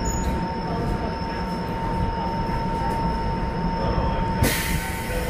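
Running noise of a Keikyu 1500-series electric train heard from inside the passenger car: a steady rumble with a thin, steady high whine. About four seconds in, a hiss comes in suddenly and the whine stops.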